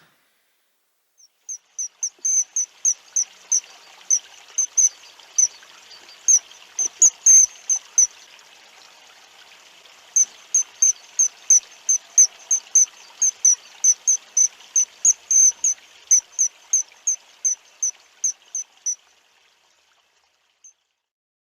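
A run of short, high-pitched chirps repeated evenly about two to three times a second, breaking off for a couple of seconds in the middle before starting again, over the steady rush of a stream.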